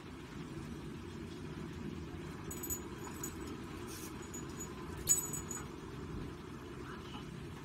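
Steady low background rumble, with a few light metallic clinks a couple of seconds in and a sharper, louder clink about five seconds in.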